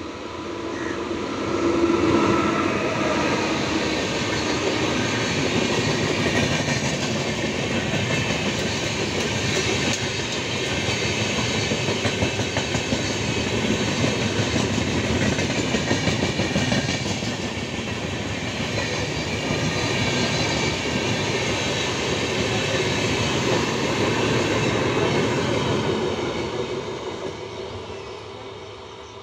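Passenger train passing close by at speed: steady rolling noise of the wheels on the rails. It builds over the first two seconds as the electric locomotive comes past, and fades near the end as the coaches recede.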